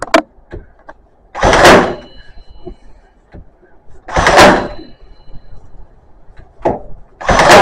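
Ozito cordless stapler firing staples into the timber edge of a split door, three shots roughly every two and a half to three seconds, each a short sharp burst with a brief metallic ring, with small clicks of handling in between.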